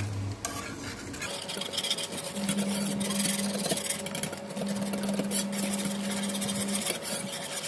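Wire whisk scraping and rattling round a saucepan, whisking a thickening béchamel of milk and flour. A low steady hum comes in twice, for about a second and then about two seconds, in the middle.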